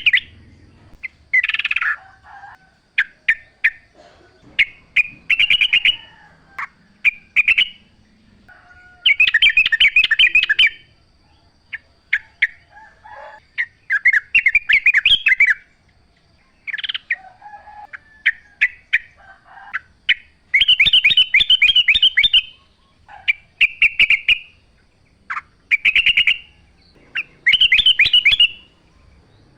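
Yellow-vented bulbul (trucukan) singing: loud, bubbly phrases of rapid chattering notes, repeated every second or two, the longest lasting about two seconds.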